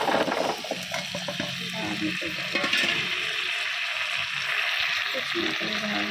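Cut potatoes and green peas dropped into hot oil and onion-tomato masala in a pressure cooker. They set off a sudden burst of sizzling as they land, then a steady frying hiss.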